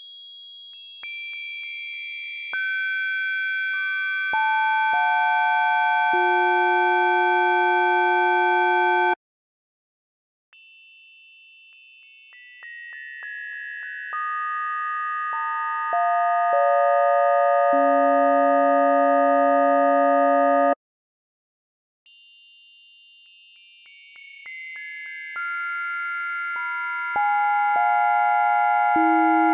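Synthesized bell timbres built from steady pure tones, one tone per partial of the bell. In each build-up the partials enter one at a time from the highest down to the lowest hum tone and swell into a sustained, ever louder bell-like chord. Each build-up then cuts off suddenly, and the next bell's begins after about a second, three times in all.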